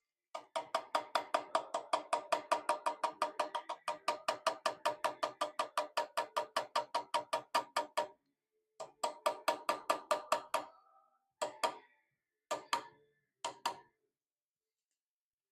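Small hammer tapping a chisel into a wrought-iron cross-guard, cutting a dovetail groove for a copper inlay: a fast, even run of ringing metal taps, about five a second, then a shorter run after a pause and three single taps near the end.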